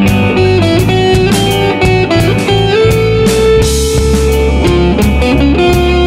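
Background music: guitar playing held notes over drums keeping a steady beat.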